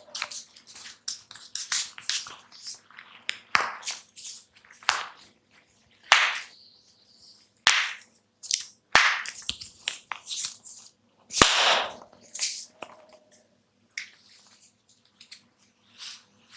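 A barber's hands working a head massage close to the microphone: an irregular run of sharp cracks and snaps mixed with short rubbing swishes, sparser near the end.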